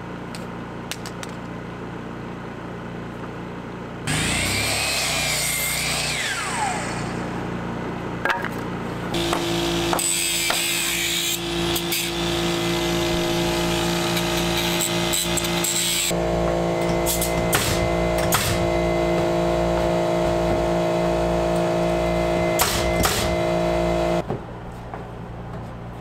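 Power tools at work on timber framing: a mitre saw cut about four seconds in, its blade winding down with a falling whine. Then steady power-tool noise with sharp clicks and knocks, stopping abruptly near the end.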